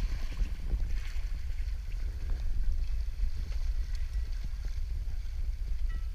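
Wind buffeting the microphone with a heavy low rumble, over irregular water splashes and sloshing as lemon sharks thrash at the surface.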